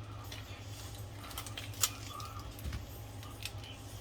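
Scattered light clicks and taps from kitchen items being handled on a counter, the sharpest just under two seconds in, over a steady low hum.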